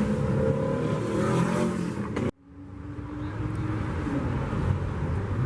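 Car engines running and revving, with rising engine pitch in the first part. The sound cuts off abruptly about two seconds in, then resumes with more engine noise.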